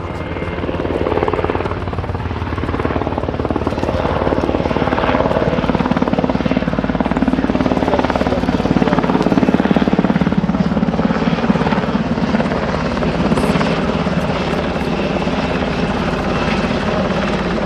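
UH-60 Black Hawk helicopter flying low overhead, its rotor beating rapidly. It grows louder to a peak about halfway through and eases off only slightly by the end.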